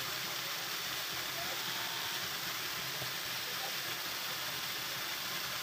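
Steady rush of stream water flowing over rocks into a river pool, an even hiss that does not change.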